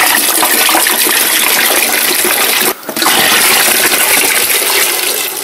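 Water poured out of canning jars of cucumbers into a larger vessel, gushing steadily. It breaks off briefly a little under three seconds in, then resumes.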